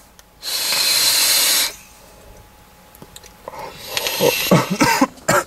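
Loud breathy hiss of a big vape hit, lasting about a second from half a second in. Near the end come brief voice sounds.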